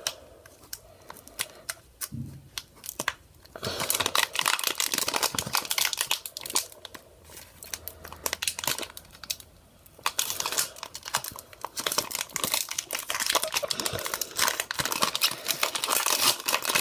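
Foil wrapper of a Pokémon trading card booster pack being torn open and crinkled by hand. The crackling is soft at first, comes in bursts from a few seconds in, pauses briefly, and is loudest over the last several seconds.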